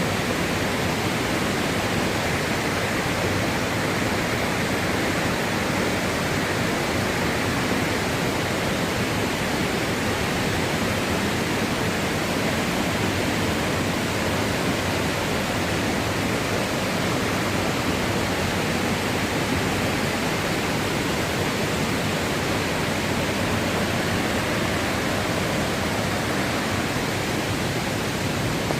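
Waterfall, a steady rush of falling water.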